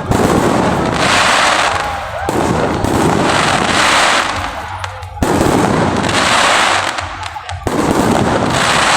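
Fireworks display: four shells burst about two and a half seconds apart, each sudden bang trailing off into about two seconds of dense crackling.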